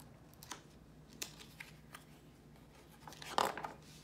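A page of a picture book being turned and pressed flat by hand: a few light paper ticks, then a louder paper swish about three and a half seconds in.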